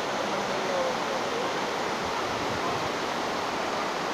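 Steady, even rush of a large waterfall, heavy falling water with no breaks.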